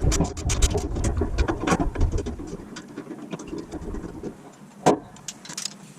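Socket ratchet clicking in quick runs as transmission mounting bolts are loosened, thinning out after about two and a half seconds, with one sharp knock near the end.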